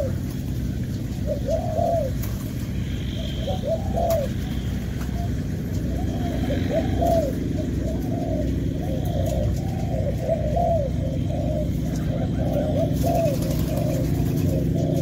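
Spotted doves cooing: short rounded coos, a few scattered ones at first, then several birds cooing over one another almost without pause from about six seconds in, over a steady low background hum.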